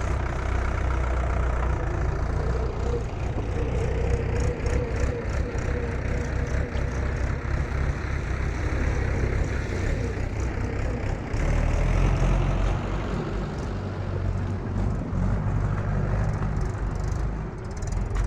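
Diesel engine of a JCB backhoe loader running while it works, a steady rumble that grows louder about eleven seconds in as it comes under more load.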